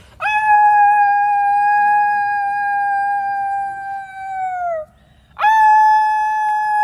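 Wolf dogs howling: two long, steady howls. The first bends downward as it ends nearly five seconds in, and the second begins after a short pause.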